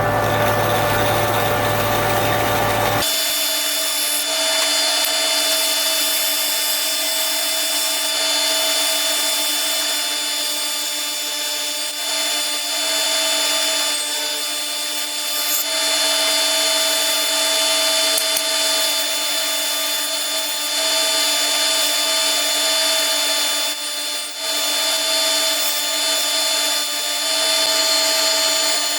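Bandsaw running steadily while cutting a beech blank freehand. Its low hum drops away about three seconds in.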